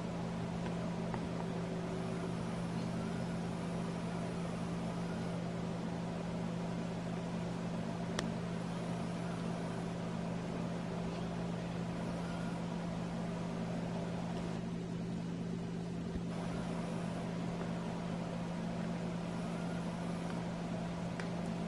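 Steady low electrical hum with a faint hiss above it, unchanging throughout, with one faint click about eight seconds in.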